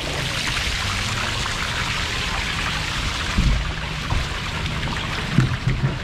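Water running steadily down a kids' water slide, a continuous trickling hiss. A few dull low thumps come about halfway through and again near the end.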